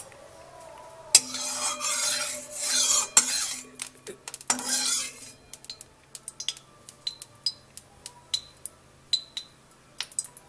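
Steel utensil working in a kadhai with a little oil: about four seconds of loud rasping, scraping noise starting about a second in, then a run of light, sharp metallic clinks that each ring briefly.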